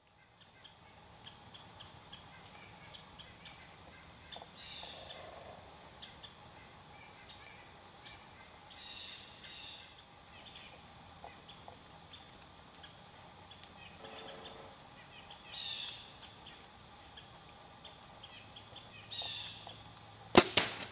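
Quiet woods with scattered small crunches and rustles and a few short bird calls. About twenty seconds in comes a sharp, very loud snap and thwack: the release of a Bowtech compound bow as an arrow is shot at a deer eight yards off.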